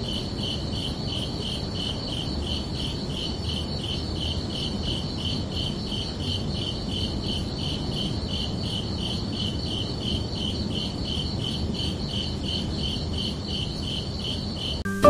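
Crickets chirping steadily, about three chirps a second, over a low background hiss.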